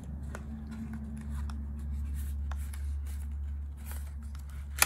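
Cardboard and paper packaging being handled: faint rustling and light clicks over a steady low hum, with one sharp click near the end.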